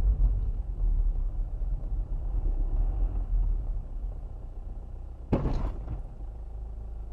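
Low steady rumble of a car's engine and road noise, heard inside the cabin through a dash camera, with one sharp knock about five seconds in.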